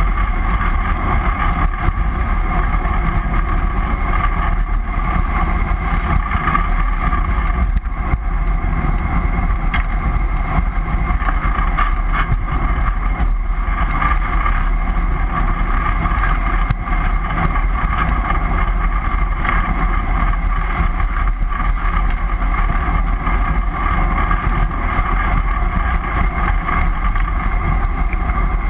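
Steady wind rush and low rumble on a bicycle-mounted GoPro riding fast downhill on a paved road.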